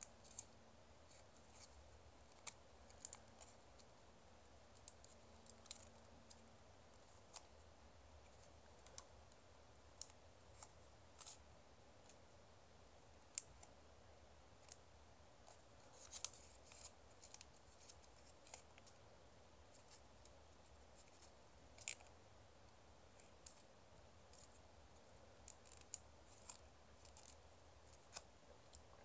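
Faint, scattered crinkles and ticks of origami paper being folded, pinched and shaped by fingers, over quiet room tone.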